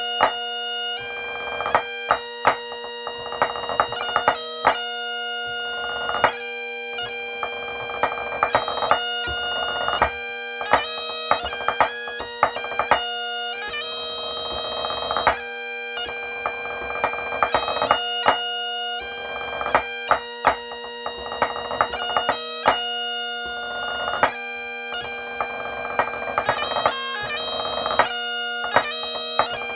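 Great Highland bagpipe playing a 3/4 march over its steady drones, with snare drum strokes played along in time, sharp accented hits standing out above the pipes.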